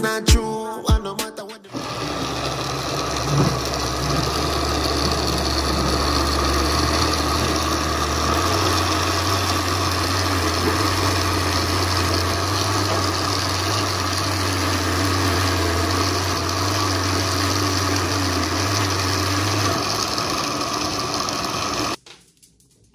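Countertop blender motor running steadily, chopping onion, scallion, garlic, hot pepper and herbs in olive oil into a thick green seasoning paste; it stops abruptly near the end. Music plays for the first second or two.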